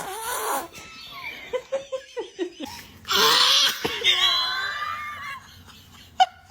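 People laughing, with a loud breathy burst about three seconds in, followed by high-pitched wavering laughter that fades near the end.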